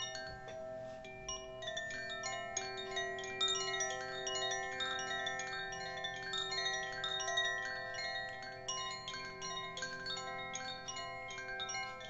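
Koshi bamboo chime swung by hand: its tuned metal rods strike the clapper again and again, giving a continuous wash of clear, overlapping ringing tones that linger as they fade.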